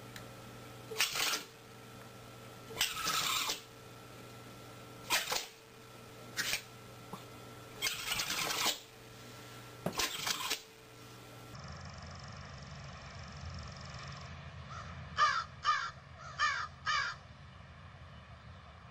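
A crow cawing four times in quick succession over a steady tape hiss. Before that, a small dog nosing along a carpet makes about six short, breathy bursts a second or two apart.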